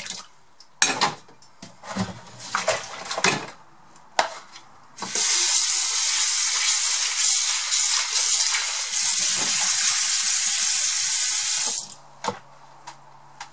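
Washing up at a stainless steel sink: items knock and clatter in a plastic washing-up bowl, then about five seconds in the kitchen tap runs at full flow onto the bowl for about seven seconds and is shut off abruptly.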